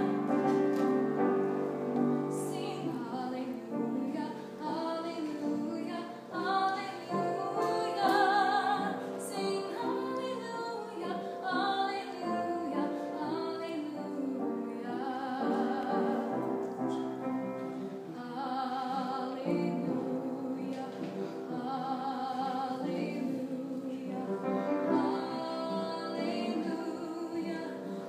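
A young woman singing a solo, in sung phrases with vibrato, over steady held chords underneath.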